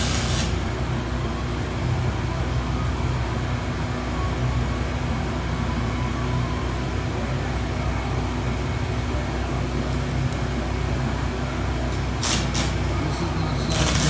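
Arc welding on steel pipe, over a steady low electrical hum. The arc is off for most of it, then strikes with a few sharp crackles about twelve seconds in and settles into a steady welding sizzle near the end.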